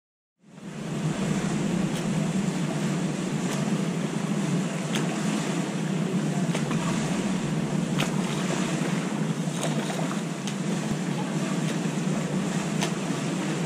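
Steady rushing of wind and lapping pool water on an action camera's microphone, with a low rumble underneath and faint ticks about every second and a half.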